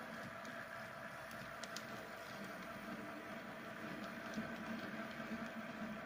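HO scale model freight train rolling past, a faint steady hum with a few light clicks in the first two seconds.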